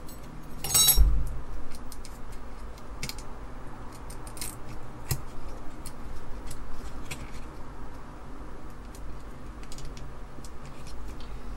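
Small clicks and scrapes of fingers rocking a tight-fitting DIP chip in its socket on an Apple II expansion card, with a sharper clatter about a second in.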